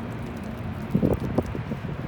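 Low, steady engine rumble from rail maintenance equipment, with a couple of wind buffets on the microphone about a second in.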